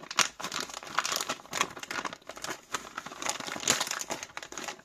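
Packaging crinkling and rustling as it is handled and unwrapped by hand, a dense run of irregular crackles.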